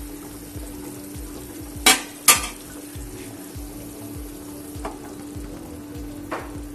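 Food frying in hot oil, a steady sizzle, with two sharp knocks about two seconds in.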